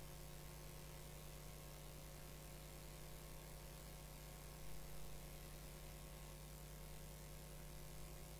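Faint steady electrical mains hum over hiss, with one brief faint bump a little past halfway.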